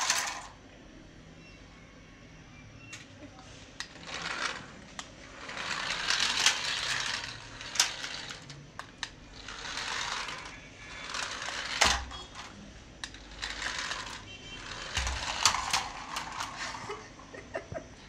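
Remote-control toy car running over a tiled floor in several short bursts of one to two seconds, its small electric motor and plastic wheels whirring. Sharp plastic clicks and knocks come in between as it bumps into things, the loudest with a low thump about midway.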